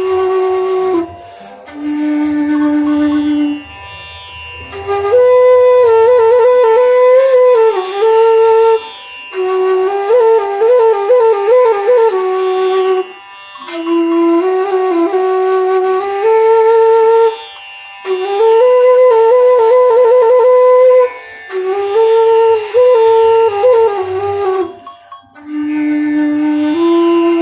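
Bansuri bamboo flute playing a slow melody in phrases a few seconds long, with short breath pauses between them and quick wavering ornaments, over a steady tanpura drone.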